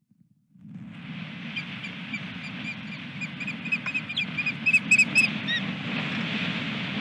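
Osprey calling a run of short, high whistled chirps that quicken and grow louder, then stop, over a steady rumble of wind buffeting the microphone. A few sharp knocks come about five seconds in.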